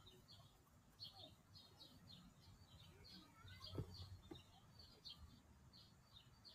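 Near silence: faint, regular high chirping in the background, a couple of chirps a second, with one soft knock about four seconds in.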